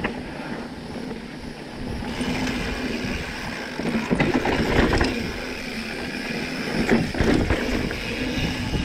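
Electric mountain bike ridden fast along a dirt singletrack: wind rumbling on the handlebar camera's microphone over tyre noise, with the bike clattering over bumps several times, loudest about four to five seconds in and again near seven seconds.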